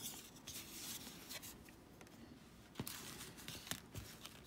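Faint rustling and sliding of a paper greeting card being handled and folded, followed by a few light taps and a soft thump near the end as the card and padded envelopes are set on a wooden table.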